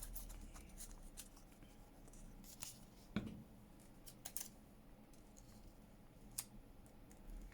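Quiet paper-crafting handling: paper being pressed and moved, with scattered light clicks and taps, the sharpest about three seconds in.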